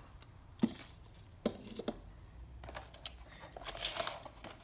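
Plastic bags and tissue paper crinkling and rustling as kit parts are handled in a cardboard box, with a few short, sharp rustles in the first two seconds and a longer crinkle near the end.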